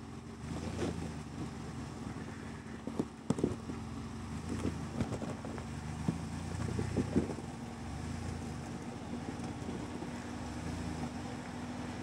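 Ford Bronco's engine running steadily at low crawling speed as it climbs over boulders, with several sharp knocks and scrapes of rock against the tires and underside around three to seven seconds in.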